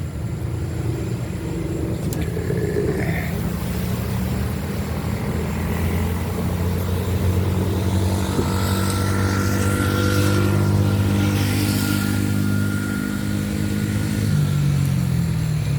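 A motor vehicle driving past, its engine and road noise swelling to a peak about ten seconds in and then fading away.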